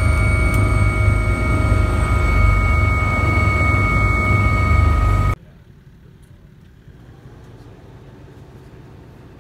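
Inside the cockpit of a twin-turbine AW139 rescue helicopter as it lands: a loud, steady rotor and engine rumble with a constant high turbine whine. About five seconds in the sound cuts off abruptly to a faint outdoor background.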